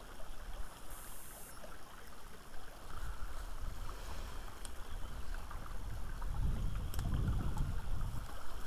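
Walking through forest undergrowth: footsteps and branches brushing past the camera, with a few sharp twig snaps and a low wind rumble on the microphone that grows from about six seconds in.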